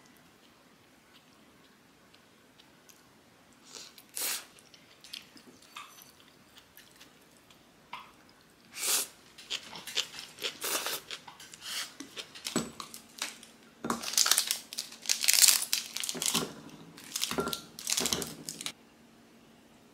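Scattered soft chewing of instant noodles eaten with chopsticks. Then, about halfway through, a run of loud crinkling and tearing as plastic chocolate wrappers are pulled open.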